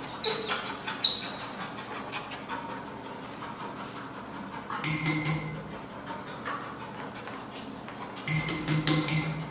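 A dog panting and sniffing as it moves about, with light clicks throughout and two louder stretches, one about five seconds in and one near the end.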